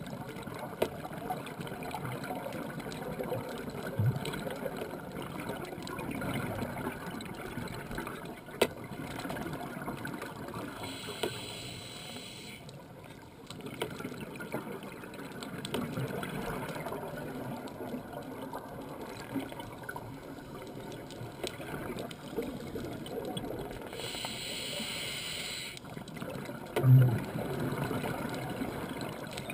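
Scuba diver's regulator heard underwater: a steady gurgle of exhaled bubbles, broken twice by the hiss of an inhaled breath, about eleven and about twenty-four seconds in. A brief low thump about twenty-seven seconds in.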